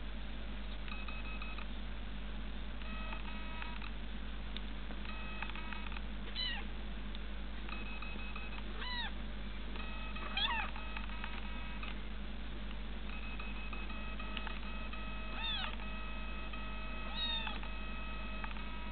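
Ginger kitten meowing five times, short calls that rise and fall in pitch, the loudest about halfway through. Behind them run a steady low hum and on-and-off flat, steady tones.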